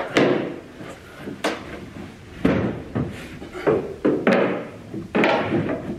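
A run of knocks and bumps, about seven in six seconds, some dragging into short scrapes, as a large plastic water tank and loose wooden boards are shifted and lifted inside a boat's hull.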